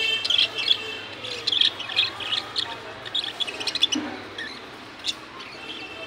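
A small colony of budgerigars chirping: a busy run of quick, high chirps that thins out after about three seconds.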